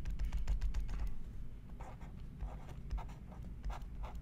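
Stylus on a drawing tablet: a run of short, irregular taps and scratches as a dashed outline and a handwritten label are drawn, over a low steady hum.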